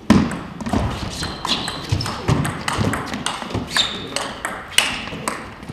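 Table tennis rally: the ball clicking fast and irregularly off the bats and the table, with low thuds mixed in.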